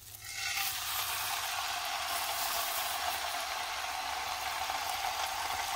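Beef chuck roast sizzling as it goes into a pan of hot oil to be seared. The sizzle starts about half a second in and then runs on steadily.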